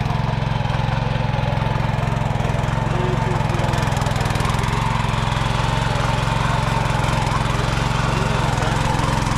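Small petrol engine of a walk-behind power tiller running steadily under load as its tines churn through grassy soil.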